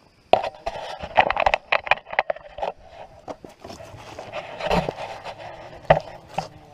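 Rapid clatter of clicks and knocks for about two seconds, then rustling with a few scattered knocks: someone moving about and handling things close to a body-worn camera.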